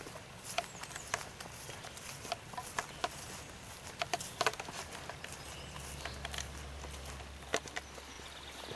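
Footsteps walking across mown grass: an uneven series of soft steps over a steady outdoor hiss.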